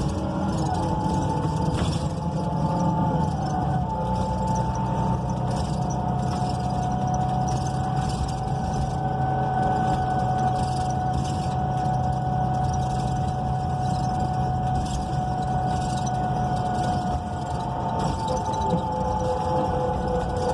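Cabin sound of a NABI 42 BRT transit bus under way: the Cummins Westport L9N natural-gas engine's steady low rumble with a drivetrain whine that rises and falls gently in pitch, over road noise.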